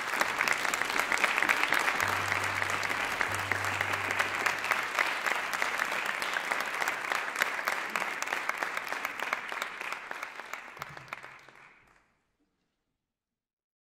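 Audience applauding, a dense, even clapping that fades out about twelve seconds in.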